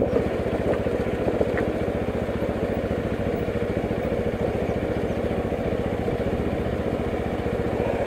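Motorcycle engine running steadily while the bike rides along a dirt track, its exhaust pulses even and unbroken.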